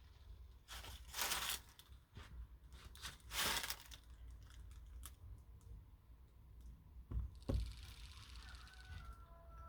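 Termites making two short rattling bursts about two seconds apart, among scattered faint clicks and a knock.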